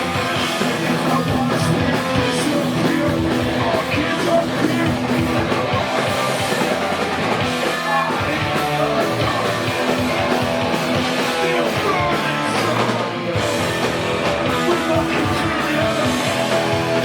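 A live rock band playing loud, led by electric guitar, with no let-up.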